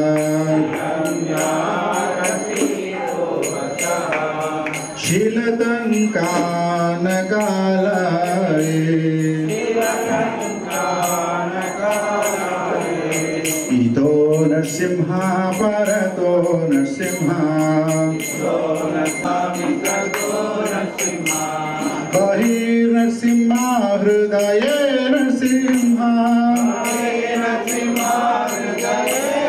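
Devotional chanting (kirtan) sung as a melody with held, gliding notes, over a steady jingling metallic beat.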